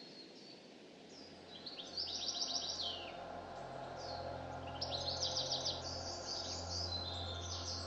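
A songbird singing: two rapid, high trilled phrases ending in downward slurs, about two seconds in and again about five seconds in, with short chips and whistles between. A steady low hum grows underneath.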